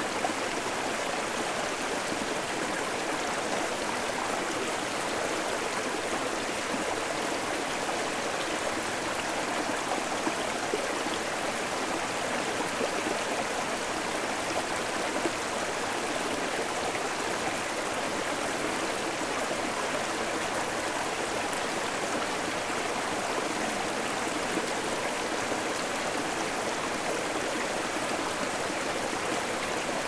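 Steady rush of flowing water from a gently falling waterfall and its clear mountain stream, even and unbroken throughout.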